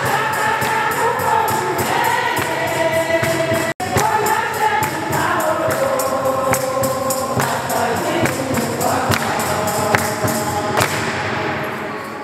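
Church choir singing a gospel hymn over a steady percussion beat. The sound drops out for an instant about four seconds in and fades near the end.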